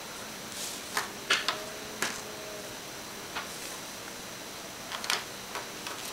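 Handling noise at a desk: about half a dozen light, sharp clicks and taps scattered over a faint steady hum.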